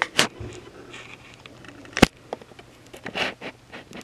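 Handling noises around a resin 3D printer: short rustles near the start and about three seconds in, and one sharp click about two seconds in, the loudest sound.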